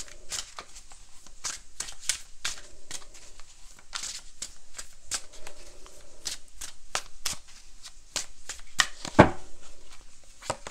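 A tarot deck being shuffled by hand: many quick, irregular card flicks and slaps, with one louder thump about nine seconds in.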